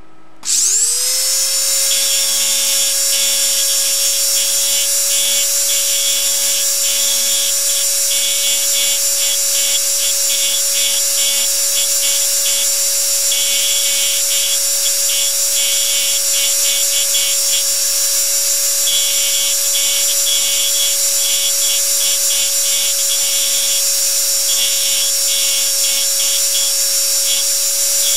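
Power engraving machine starting up about half a second in, its whine rising and then holding steady. A chatter comes and goes over it as the graver cuts into a nickel.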